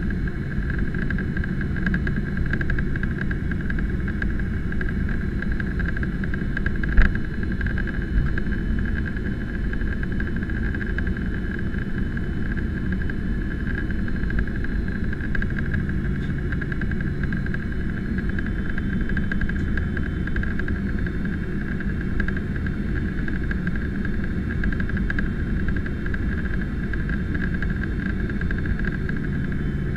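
Boeing 767-300ER cabin noise in flight: the steady rush of airflow and jet engines, with a constant higher hum over it. A single brief click sounds about seven seconds in.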